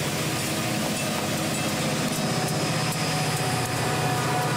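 Union Pacific diesel-electric freight locomotives passing close at slow speed, the diesel engine running with a steady low throb. A few faint clicks come about halfway through.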